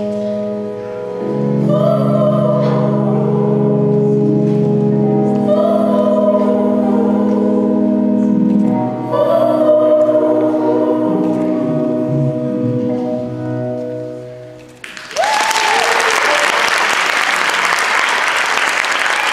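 A slow song with singing over sustained chords fades out, then the audience applauds, with a single whoop as the applause begins.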